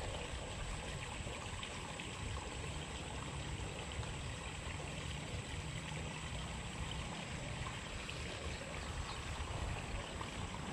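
Steady outdoor background noise: an even hiss over a low rumble with a thin, steady high tone, and no distinct events.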